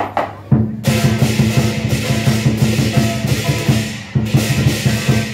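Lion dance percussion: a large drum beating a fast, driving rhythm with clashing cymbals. It starts about half a second in and breaks off briefly near four seconds.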